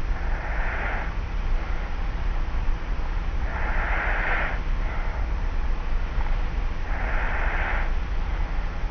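A sleeper lying on their back breathing with slight, soft snoring: three breathy snoring breaths about three and a half seconds apart, heard over a cassette tape recorder's steady hiss and low hum.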